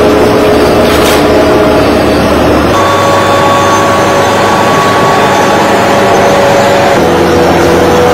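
Loud, steady running of factory machinery, a dense hum with a few held tones. Its pitch changes abruptly twice, about three and seven seconds in.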